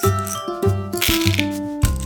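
Background music with a steady bass beat, about three pulses a second, under a bright plinking melody.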